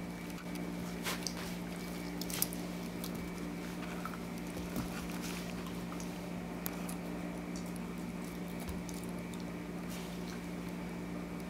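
A dog mouthing and chewing a toy: a few scattered soft clicks and squishes over a steady low hum.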